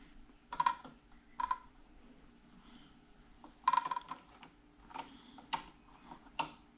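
Wire cutters snipping the looped ends off copper electrical wires: several short, sharp clicks a second or more apart, with light handling noise between them.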